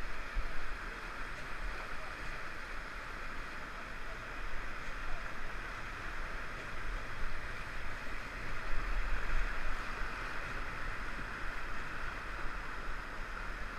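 Kern River whitewater rushing steadily around a paddle raft, with a low rumble that swells and fades.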